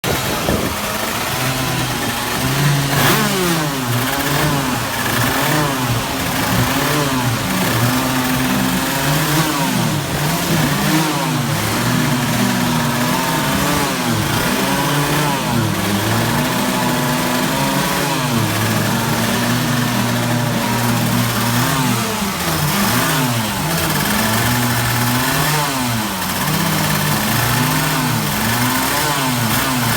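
Several two-stroke racing kart engines being warmed up together, revved in repeated rising and falling blips over each other.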